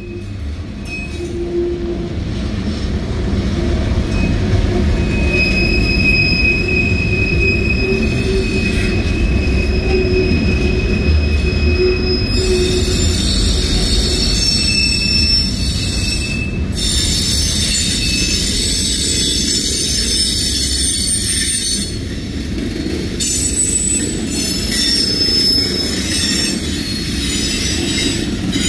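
Freight train cars (tank cars and boxcars) rolling past on steel wheels, a steady low rumble of wheels on rail. High-pitched wheel squeal comes and goes over it, strongest in a stretch near the middle that cuts off suddenly.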